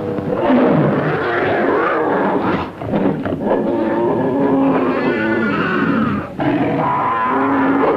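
Dubbed monster roars and growls from an old film soundtrack, overlapping almost without pause, with short breaks about three and six seconds in.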